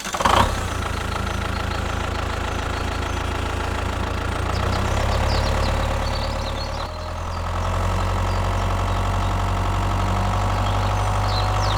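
An engine running steadily with a low hum, with a brief dip and a change in tone about seven seconds in.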